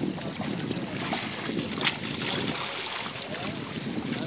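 Sea water lapping and sloshing against concrete breakwater blocks, with wind on the microphone. A single sharp click about two seconds in.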